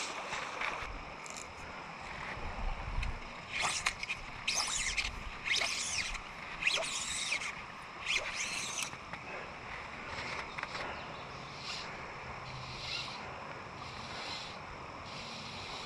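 Silk fly line being pulled and stripped by hand in about five quick zipping pulls, roughly one a second, from about four to nine seconds in, with a few fainter pulls after.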